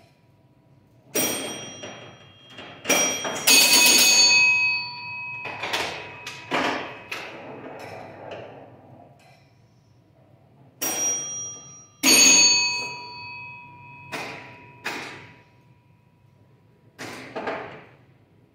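1953 Williams Grand Champion electromechanical pinball machine in play: sharp mechanical clacks from the playfield, several of them setting off ringing score bells that hang on for a second or so. The hits come in irregular clusters with quieter gaps between.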